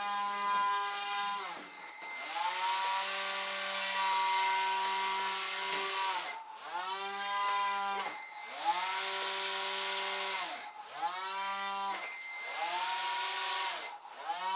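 Small electric motor and air propeller of a radio-controlled model air boat, running with a steady buzzing whine. Several times the motor slows, the pitch sags and drops in level, then it speeds back up.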